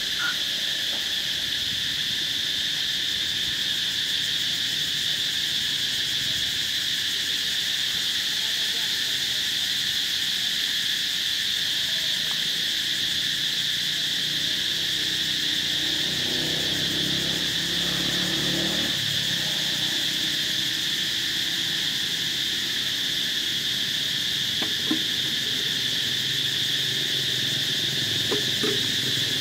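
Steady, high-pitched insect chorus that drones unbroken throughout. A faint low rumble comes and goes about halfway through.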